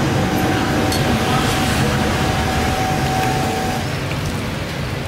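Steady low rumbling background noise, with a faint steady tone that stops about four seconds in.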